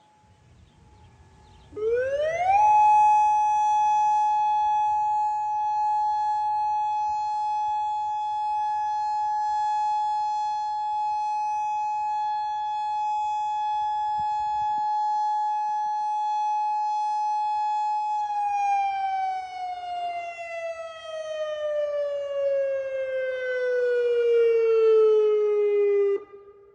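Federal Signal Modulator 4016 outdoor warning siren sounding its test tone. About two seconds in it rises quickly to one steady pitch and holds it for about fifteen seconds, then slides slowly down and cuts off suddenly near the end.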